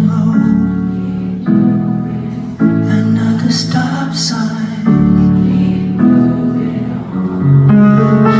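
Music: slow, sustained piano chords that change every second or so, with a singing voice over them.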